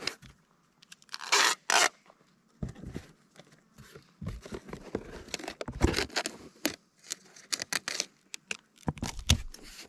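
Tape being pulled off the roll in ripping strips to seal a box, with scraping and rustling as it is pressed down. Two long rips come about a second in, then a run of shorter ones.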